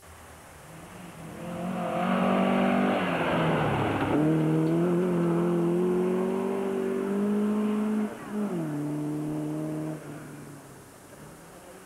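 Ford Escort Mk2 rally car's engine accelerating hard as the car comes by. The revs drop sharply at a gear change about four seconds in, then climb steadily. Near the end the driver eases off and the engine note falls and fades away.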